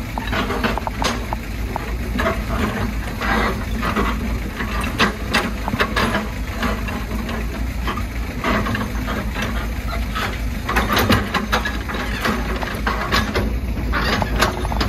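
Hitachi hydraulic excavator at work: its diesel engine runs steadily while the steel bucket scrapes and knocks through earth and broken concrete rubble, giving many sharp clatters of stone.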